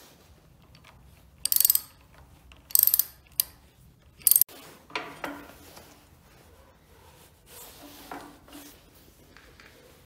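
Socket ratchet wrench clicking in four short, loud bursts as it turns the end cap of a grease gun held in a vise, followed by softer handling sounds of the metal parts.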